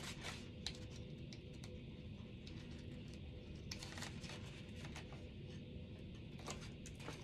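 Faint handling of paper and cardstock: a few light ticks and rustles as pieces are placed and pressed down, over a steady low background hum.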